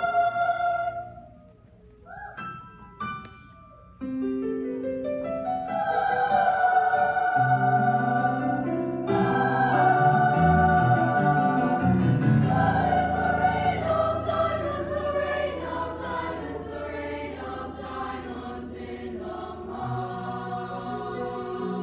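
Women's choir singing with piano accompaniment. A held chord dies away about a second in, a few soft notes sound in a brief hush, and then choir and piano come back in together about four seconds in and carry on with sustained, layered chords.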